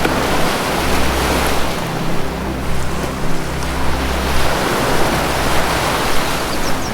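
Ocean surf washing in and swelling, over low sustained notes of soft ambient music. A couple of faint bird chirps come near the end.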